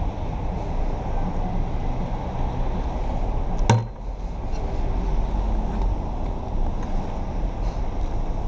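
City street traffic on wet pavement: a steady low rumble of passing cars, with one sharp click a little under four seconds in.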